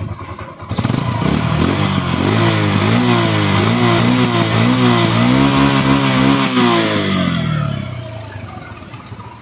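Yamaha XTZ 125's single-cylinder four-stroke engine, freshly tuned up, being revved in short throttle blips about twice a second, then easing back and fading near the end.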